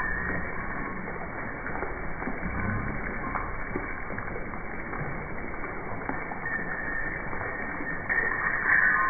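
Fountain water splashing steadily into a stone pool.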